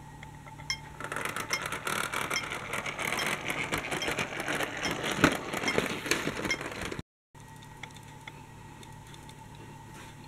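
Toy vehicle being rolled across a plastic road layout, its wheels and gearing giving a dense clicking, ratcheting rattle that cuts off suddenly about seven seconds in. After that, only quiet room tone with faint ticks.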